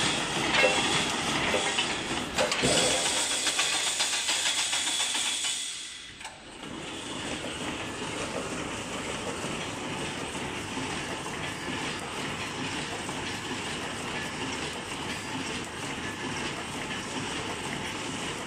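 Automatic chicken-cage wire mesh welding machine running, with a dense hiss and clatter from welding and wire feeding. The noise is louder and busier at first, dips briefly about six seconds in, then carries on as a steadier, quieter hiss.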